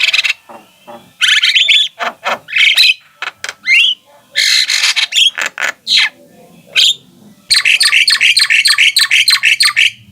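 Javan mynas singing a loud, varied song of harsh notes and whistled glides. About 7.5 seconds in comes a fast run of repeated notes, roughly eight a second.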